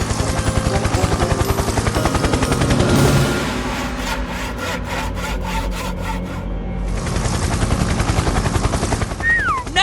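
A rapid rattling mechanical sound effect, many pulses a second, over cartoon background music. The rattle drops away about seven seconds in, and falling whistle glides come near the end.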